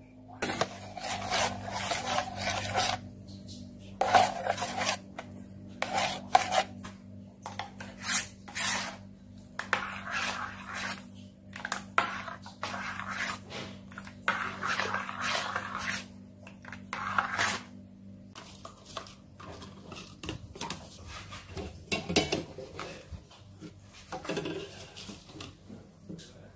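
A metal spoon stirring a pudding mixture in a small saucepan, scraping against the pan in quick, irregular strokes. After that it goes quieter, with sparser knocks of utensils and pots being handled.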